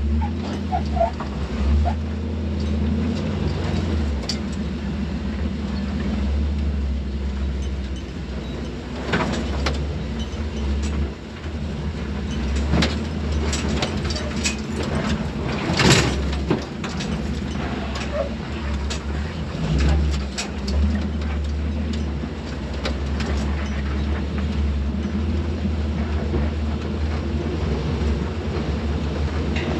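A vehicle driving: a steady low rumble of engine and road noise, with scattered knocks and rattles, the sharpest one about halfway through.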